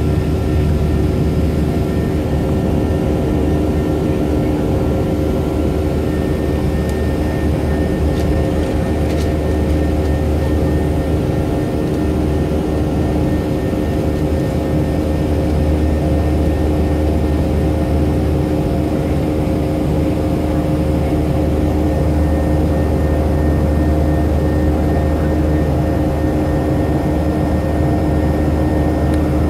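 Airliner cabin noise in the climb after takeoff: a steady, loud rumble of engines and rushing air, with several steady humming tones running through it.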